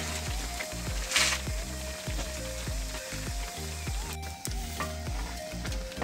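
Loquat jam boiling hard in a wide aluminium pot, a continuous bubbling sizzle, under background music with a steady beat.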